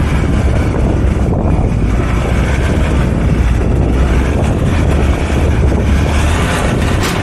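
Four-wheel-drive vehicle driving over sand: a steady, loud low rumble of engine and tyres, with wind buffeting the microphone.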